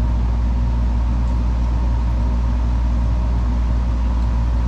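A steady low electrical or machine hum with a faint higher tone above it, unchanging.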